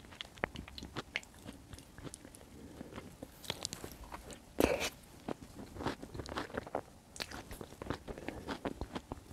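Close-miked eating sounds: a bite of bread soaked in white beans and tomato sauce, then chewing with many small wet mouth clicks. One louder bite comes about halfway through.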